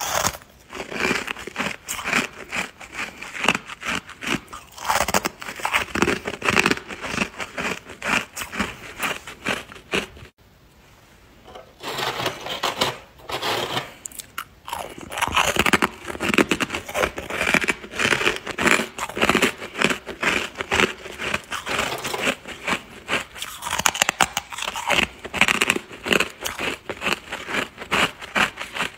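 Freezer frost being bitten and chewed up close: a dense run of crisp, crackling crunches, with a short pause about ten seconds in.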